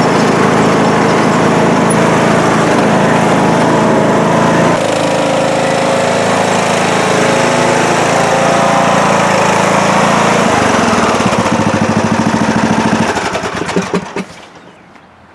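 John Deere D105 lawn tractor's single-cylinder engine running at high throttle, dropping in speed about five seconds in. About ten seconds in it is throttled back to a slow idle, then switched off near the end, stopping with a few pops.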